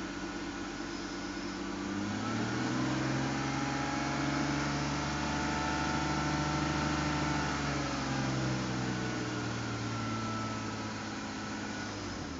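BMW M54 inline-six engine running cold and stationary: idling, then revved up about two seconds in and held at raised revs before easing back down around eight to nine seconds in.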